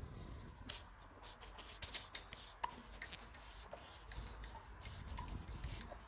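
Faint quiet-countryside ambience with scattered short, high chirps and ticks over a low background rumble.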